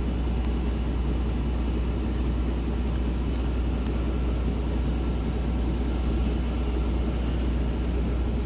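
Steady low engine rumble of an idling vehicle.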